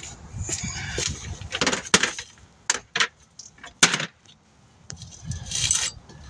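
Metal hand tools being picked up and handled: a string of irregular sharp metallic clinks and knocks.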